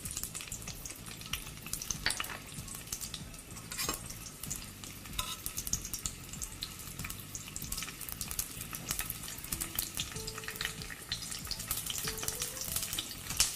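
Sliced white onion frying in hot oil in a thick-bottomed pan, a steady crackling sizzle with many small pops.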